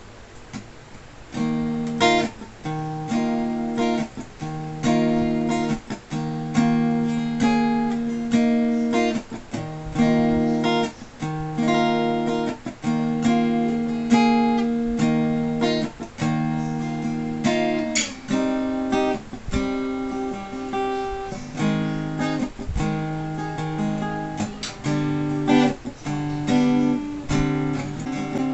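Sqoe Cranberries 41-inch acoustic guitar being strummed in a repeating chord progression, starting about a second and a half in after a quiet moment.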